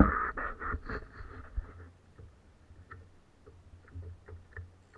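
Rubbing and knocking close to the microphone for about two seconds as the camera and gear are handled, then faint irregular small clicks from a spinning reel being handled.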